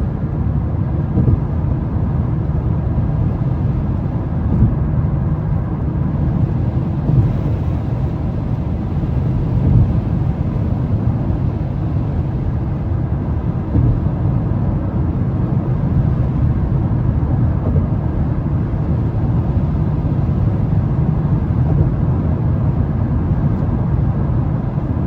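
Mazda 3 cruising at highway speed on a wet road: a steady low rumble of tyre and engine noise from inside the cabin.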